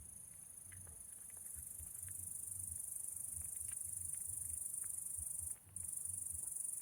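Steady high-pitched insect chirring, cricket-like, growing louder about a second and a half in and dropping out briefly near the end, with faint small clicks and low thumps underneath.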